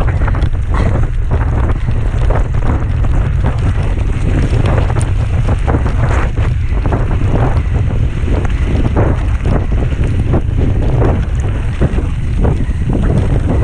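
Wind buffeting the microphone of a camera riding on a mountain bike at speed on a downhill race run, with the bike's rattling and knocking over rough ground.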